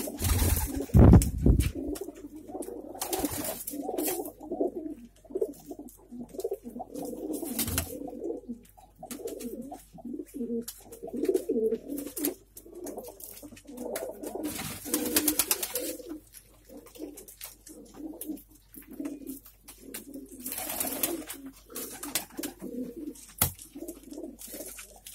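Many domestic pigeons cooing continually in a loft, with a few short rustling sounds mixed in.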